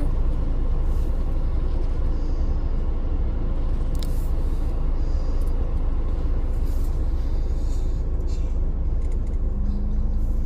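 Steady low vehicle rumble heard inside a car's cabin while the car sits idling, with traffic going through the intersection ahead.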